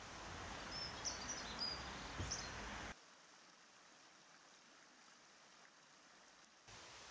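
Faint outdoor ambience: a steady hush with a few short, high bird chirps in the first couple of seconds. It cuts off abruptly about three seconds in to a quieter hiss.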